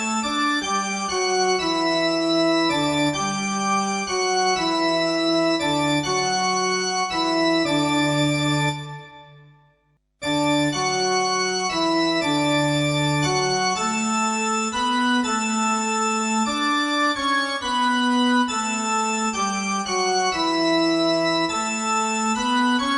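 Organ-style keyboard music playing sustained chords that change about once a second. It fades out about nine seconds in, stops briefly, then starts again abruptly a moment later.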